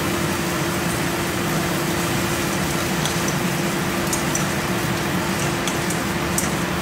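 Kitchen range hood extractor fan running with a steady hum and rushing air, plus a few faint clicks as a utensil stirs a pot.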